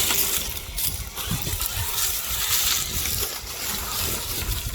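Water sloshing and trickling in a steady noisy wash, with an uneven low rumble underneath.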